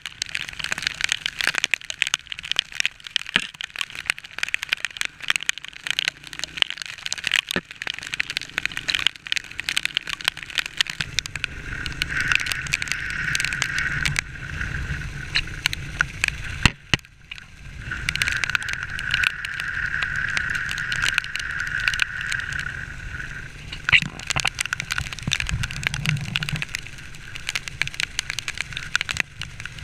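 Motorcycle riding in heavy rain, heard from a helmet-mounted camera. Raindrops crackle rapidly against the camera over wind noise. About halfway through this gives way to a steadier rush of wind and road noise with a low rumble, after a brief drop-out.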